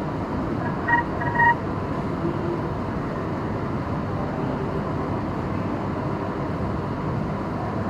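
Steady running noise of an MTR Kwun Tong Line metro train moving through a tunnel. Two short electronic beeps sound about a second in.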